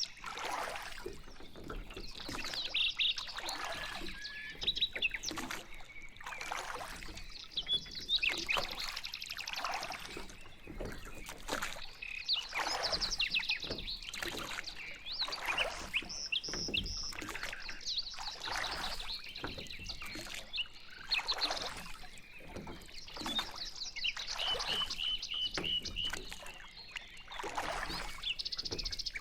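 Small birds chirping and trilling, with repeated splashes of a pedal boat's paddles churning the water every second or two.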